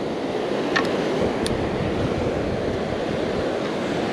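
Surf breaking and washing on the beach with wind buffeting the microphone, a steady wash of noise. Two brief faint high sounds come about a second in.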